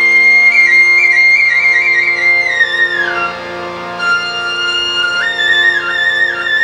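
Nepali folk music interlude: a flute plays a high, ornamented melody with quick trills, stepping down in pitch about three seconds in and rising again near the end, over steady held chords.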